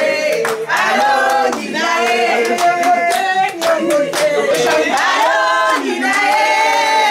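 A group of voices singing together unaccompanied, with sharp claps scattered through.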